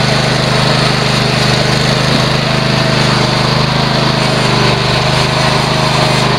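Riding lawnmower's small engine running steadily at an even pitch, towing a trailer through snow.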